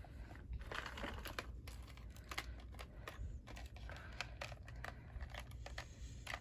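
Faint crinkling and rustling of packaging as a subscription box is opened and its contents unwrapped, in quick irregular crackles.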